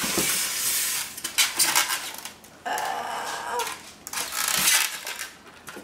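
Cardboard box and packaging rustling and scraping as a cardboard-packed part is pulled up out of the box, with a few light knocks.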